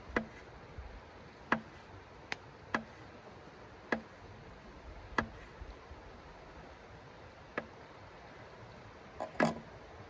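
Folding knife blade clicking against a hard tabletop as it cuts through a dried sausage, one sharp tap per slice at uneven intervals of about a second. A louder double clack about nine and a half seconds in as the knife is set down on the table.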